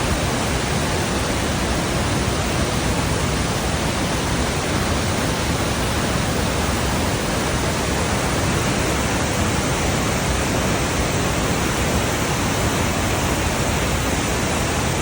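The Rhine Falls, a large river waterfall, rushing steadily and without a break.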